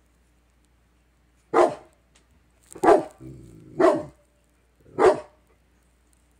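Four short, loud animal calls about a second apart, with a fainter low sound between the second and third.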